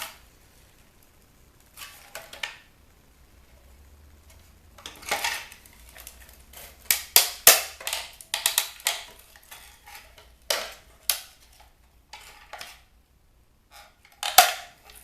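Irregular clicks, knocks and clatter of plastic and metal parts as a bug zapper's housing is handled and pried apart, coming in several clusters with quiet gaps between.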